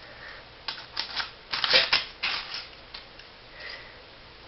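A floppy disk being handled and pushed into a floppy disk drive's slot: a run of short plastic clicks and scrapes, starting about a second in and lasting about two seconds.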